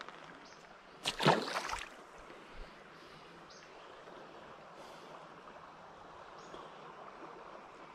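A small splash about a second in as a released smallmouth bass goes back into the shallow creek, followed by the faint, steady rush of the creek water.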